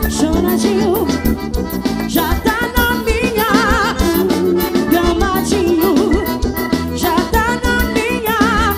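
Forró music with accordion, a steady drum beat and singing.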